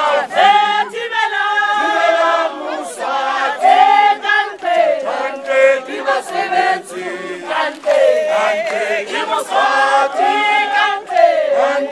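A crowd of protesters singing together in chorus, many voices at once.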